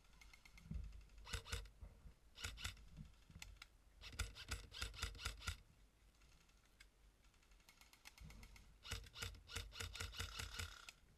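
Airsoft guns firing in bursts of sharp clicking shots: a few single shots, then two longer strings of rapid shots, about four seconds in and again near the end.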